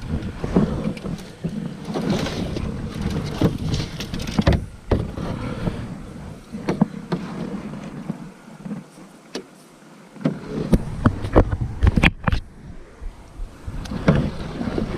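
Irregular knocks and thumps in an aluminium or plastic canoe, paddle and gear bumping the hull, over a steady hiss of water and wind.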